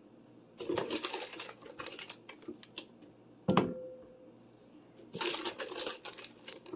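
Dry baking mix being measured into a glass mixing bowl with a metal measuring cup: two stretches of scraping and tapping, with one sharp knock of the cup against the glass about three and a half seconds in that rings briefly.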